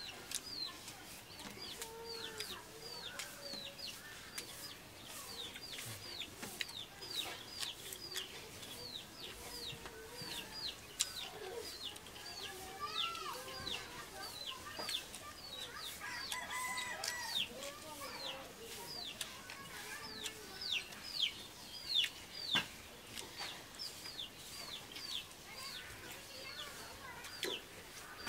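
Chickens calling: a steady run of short, high, falling peeps, about two a second, with lower clucking calls now and then and faint small clicks.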